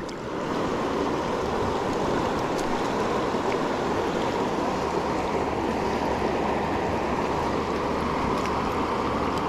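Steady rushing of flowing river water around a camera held at the surface and then under it.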